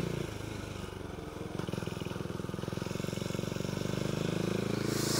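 Motorcycle engine running at low revs through a tight bend, then accelerating, rising in pitch and growing louder over the last few seconds.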